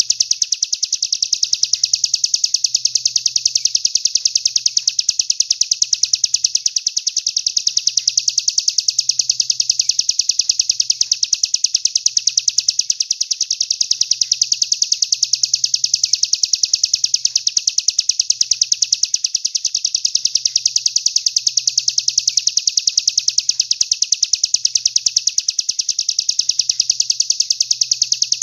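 Recorded songbird 'tembakan' phrase used as masteran training audio: a fast, even train of high chirps running on without pause, dipping briefly about every six seconds.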